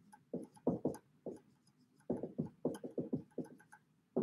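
Dry-erase marker writing on a whiteboard: a string of short squeaky strokes, coming quickest a little past halfway.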